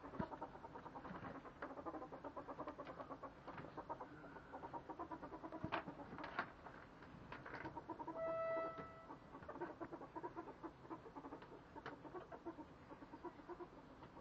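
Ferrets dooking: a rapid, soft clucking chatter, the excited sound ferrets make at play. There are a few sharp clicks, and a brief steady squeak about eight seconds in.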